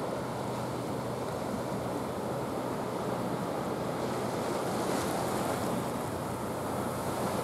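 Sea water washing steadily against a concrete breakwater, a continuous rush of water with a faint steady low hum beneath it.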